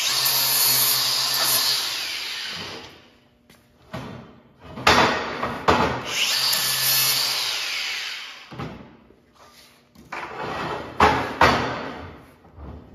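Handheld angle grinder working the ends of square steel tubing in three runs, its whine falling away as the disc spins down after each. Sharp metal knocks come at the start of the second and third runs.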